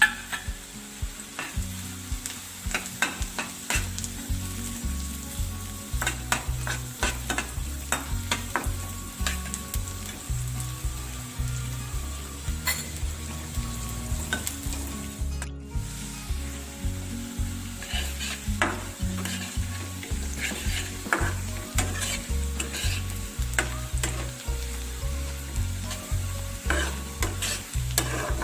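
Shredded carrots and vegetables sizzling in hot oil in a kadhai while a metal spatula stirs them, scraping and clicking against the pan many times. The sound cuts out for a moment about halfway through.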